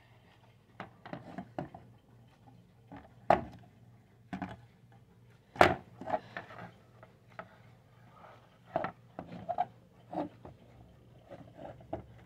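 Irregular knocks, taps and light scraping from a wall clock being handled against the wall. Two sharper knocks stand out, about three and five and a half seconds in.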